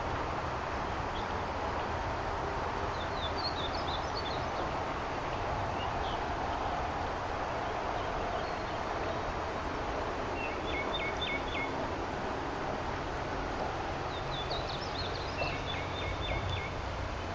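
A songbird sings short runs of quick, high chirping notes three times: a few seconds in, around the middle, and near the end. Under the song is a steady outdoor rush.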